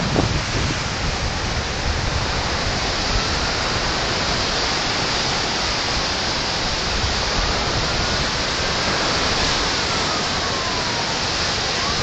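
Ocean surf washing onto a sandy beach: a steady, even rushing with a few faint gliding high tones now and then.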